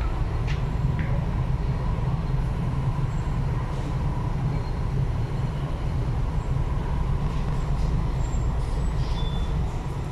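Interior noise of an MTR East Rail Line R-Train, a Hyundai Rotem electric multiple unit, running at speed: a steady low rumble from the wheels and running gear, with a faint steady whine, heard from inside the carriage.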